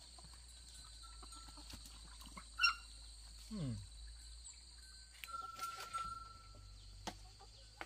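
Birds whistling and chirping over a steady high drone, with a short downward-falling cry about three and a half seconds in and a few light footstep clicks.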